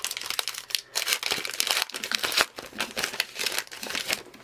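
A 2020 Topps Gypsy Queen hobby pack's wrapper being torn open and crinkled in the hands, a run of crackling rips and crumples.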